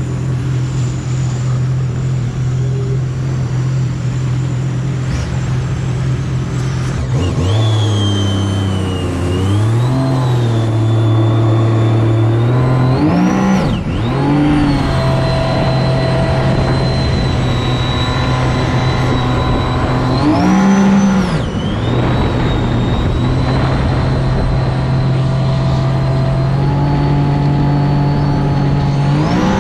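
Jet ski (personal watercraft) engine running under way on the water, its pitch stepping up and down several times as the throttle is opened and eased, with a high whine rising and falling with the engine.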